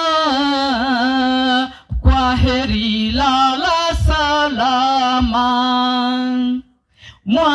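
A woman chanting a Swahili memorial poem in a slow sung style, holding long wavering notes; her phrases break off briefly about two seconds in and again near the end.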